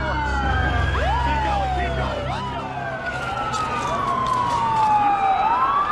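Several emergency vehicle sirens wailing at once, their pitches overlapping as they rise quickly and fall slowly, over a low hum that fades out about halfway through.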